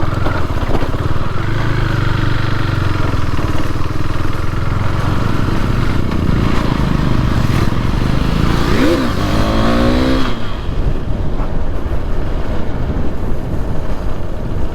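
Motorcycle engine running while riding, steady, with the revs climbing briefly about nine seconds in before easing off.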